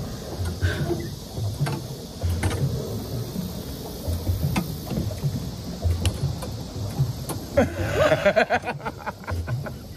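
Pedal boat being pedaled: its paddle wheel churns the water in low pulses about once a second, with scattered clicks. A brief cluster of squeaks and clicks comes near the end.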